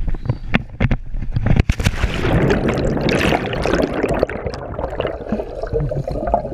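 Wind rumble and knocks on an action camera's microphone as a rope-swinger swings out over a river, then a plunge into the water about two seconds in. It is followed by loud churning, bubbling water heard underwater, thinning into a gurgle.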